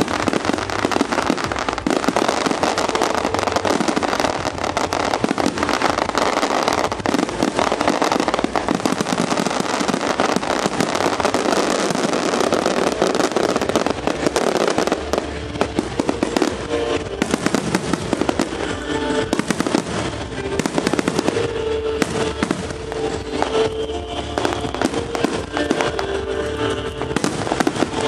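Aerial fireworks display: a dense barrage of bursts and crackling in the first half, thinning after about fifteen seconds into separate bangs, with music playing under it.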